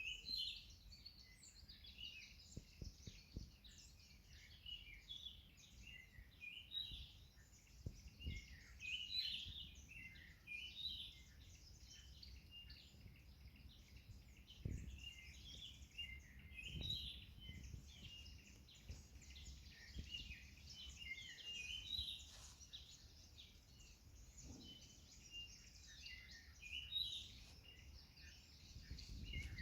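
Faint birdsong from several small birds, short chirps and trills overlapping throughout, over a low rumble with a few soft thumps.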